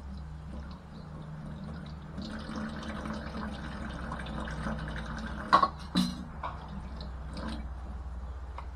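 Tap water running and splashing into a stainless steel kitchen sink as fish pieces are rinsed under it by hand. Two sharp clicks come about five and a half and six seconds in, the loudest sounds here.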